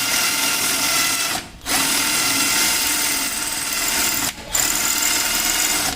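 Komax cordless drill running at full speed in three runs, cut by two brief pauses about a second and a half in and just past four seconds in.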